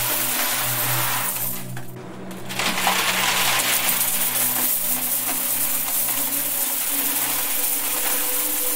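Coins pouring in a stream into a metal box of coins: a continuous jingling, clinking clatter that dips briefly about two seconds in and then resumes. A low steady hum of tones runs underneath.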